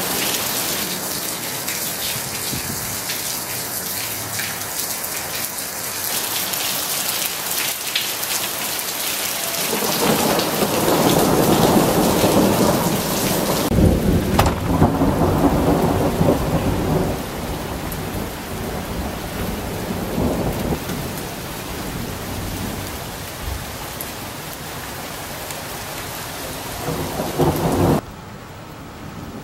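Hail falling hard onto paving and lawn, a dense hiss of many small ice impacts. About ten seconds in a louder low rolling rumble swells for several seconds and then eases back into the steady hiss; the sound drops abruptly near the end.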